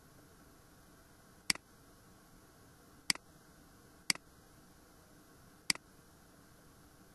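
Computer mouse button clicked four times, each a sharp click followed closely by a softer release click, over a faint steady hiss.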